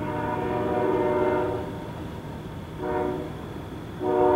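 Locomotive air horn chord sounding a long blast, a short blast, then another long blast, the end of the long-long-short-long pattern sounded for a grade crossing, over a low steady train rumble.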